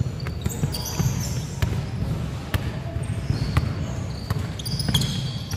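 Basketball being dribbled on a hardwood gym floor, the bounces coming about once a second, with short high squeaks of players' sneakers on the floor.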